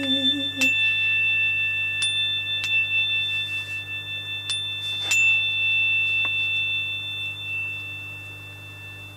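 High metallic ringing tones, struck several times, each strike ringing on and slowly fading, over a low steady hum. A sung note with vibrato dies away less than a second in.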